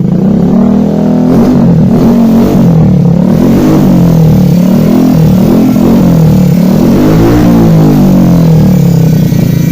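Motorstar 150N underbone motorcycle engine revved repeatedly through an SC Project aftermarket muffler, its pitch rising and falling over and over with a bigger rev near the end. The exhaust note is loud and bassy.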